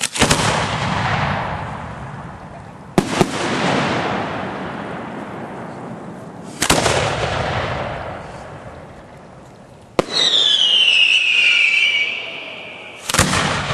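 Aerial firework shells bursting at intervals of about three seconds, five sharp bangs each followed by a long fading tail. With the fourth bang a loud whistle starts high, falls in pitch and then holds for about three seconds.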